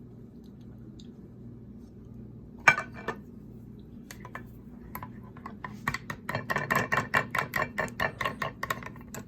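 A spoon stirring yogurt into blended papaya in a container, clinking quickly against the sides at about five strokes a second for the last few seconds. One sharp knock comes a little before the stirring starts.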